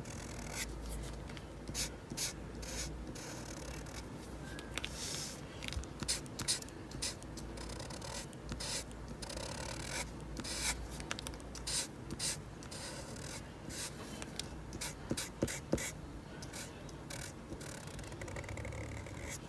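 Marker nib rubbing across paper in many quick, irregular back-and-forth strokes as an area is coloured in.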